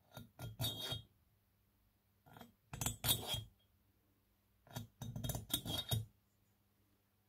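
Steel valves with their coil springs and retainers clinking and rattling against the aluminium cylinder head of a KTM LC4 640 as they are slid into the valve guides, in three short bursts about two seconds apart.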